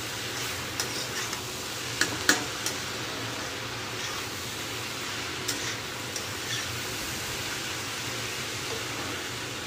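Shredded cabbage sizzling in a kadhai while a spatula stirs it, with a few sharp clicks and scrapes of the spatula against the pan.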